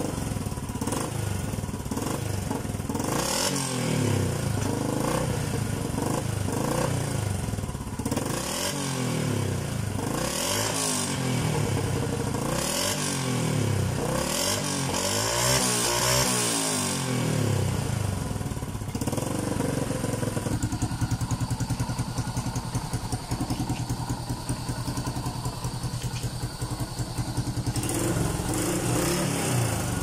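Yamaha SRX400's single-cylinder four-stroke engine being revved with repeated throttle blips, each rev rising and falling quickly. It then settles into a steady idle for the last third.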